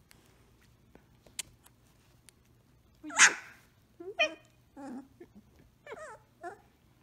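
Samoyed puppy barking in play: one loud bark about three seconds in, then a string of shorter, higher yips and whines.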